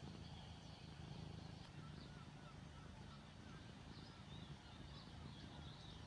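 Domestic cat purring in a low, steady rumble, with faint, quick bird chirps played through a tablet's speaker in the latter part.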